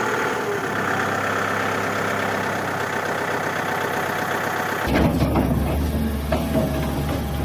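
A small engine or motor running steadily. A low hum joins it about five seconds in.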